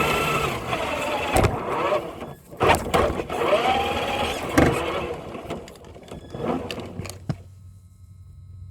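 Electric motor and drivetrain of a six-wheel-drive Traxxas RC truck whining, its pitch rising and falling with the throttle, with several sharp knocks as it bumps over rough ground. The whine dies away for the last second or so.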